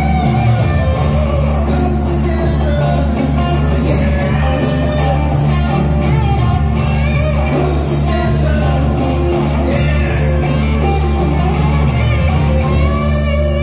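Live rock band playing: drum kit keeping a steady beat under electric guitars, bass and keyboard, with vocals. Near the end the drums stop and the chords are left ringing, as at the close of a song.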